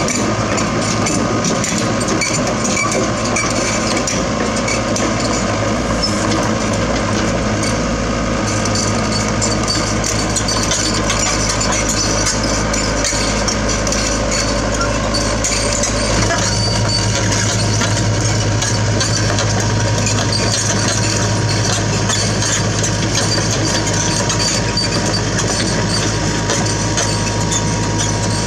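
Sany SY75C mini excavator's diesel engine running steadily while its steel crawler tracks clatter as it travels. A steady whine joins the engine note about sixteen seconds in.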